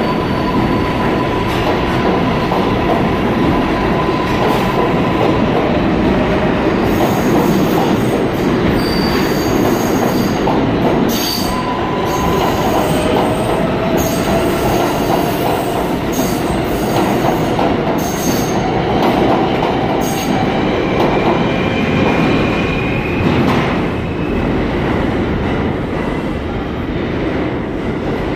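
A New York City subway train runs along the platform and pulls out of the station. The steady rumble of its wheels on the rails carries high wheel squeals and a rising whine from the motors, and the noise eases near the end as the last car clears.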